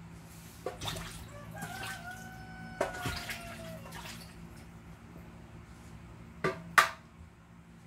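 Aluminium pots and flan moulds being handled on a kitchen counter: scattered knocks and clinks, a brief ringing tone about two seconds in, and two sharp metallic clanks near the end, the loudest of the lot, over a faint low hum.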